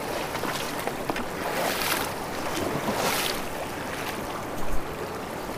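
River water rushing and lapping around a float tube held in the current, with wind buffeting the microphone. A short low bump comes about three-quarters of the way through.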